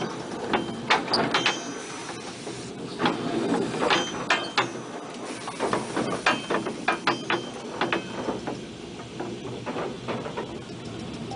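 Narrow-gauge steam locomotive Dolgoch, an 1866 0-4-0 well tank, heard from its footplate while moving slowly: irregular metallic knocks, clanks and rattles from the engine and cab over a steady low running noise.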